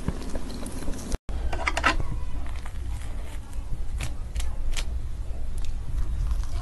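Close-miked eating of soft cream crepe cake: a metal fork clicking lightly a few times, with quiet mouth sounds over a low steady hum, and a brief dropout about a second in.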